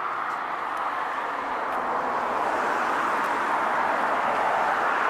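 Steady rushing background noise of distant road traffic, at an even level.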